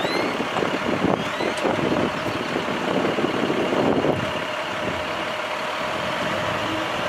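Truck diesel engine running, the International MaxxForce DT of a digger truck, with a rough, busy sound that eases about four seconds in to a steadier hum. Two short, high rising squeaks come in the first second and a half.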